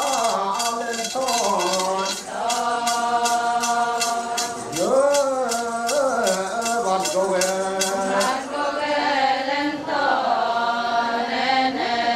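Adi Ponung song: voices chanting a sung melody in long held notes. Over it comes a rhythmic metallic jingling about three times a second from the lead singer's shaken Ponung sword, which stops about eight seconds in.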